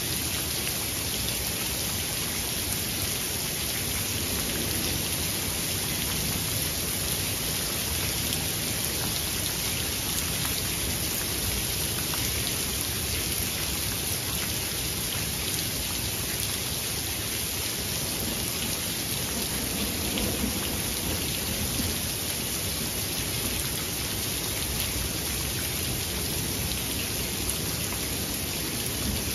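Steady rain falling, a constant hiss with many single drops ticking through it. A low rumble of thunder swells softly about twenty seconds in.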